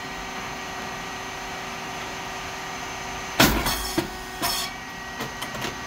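SYP8002 puffed rice cake machine running with a steady hum, then, about three and a half seconds in, a sudden loud pop with a short hiss as a cake puffs in the heated mould, followed by a click and another brief hiss.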